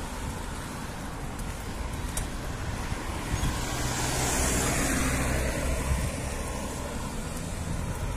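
Road traffic: a steady rumble of cars, with one vehicle passing close, swelling and fading about four to five seconds in.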